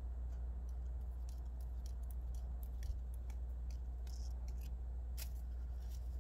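Orange tabby cat crunching food from the ground: small, crisp, irregular clicks of chewing, over a steady low rumble.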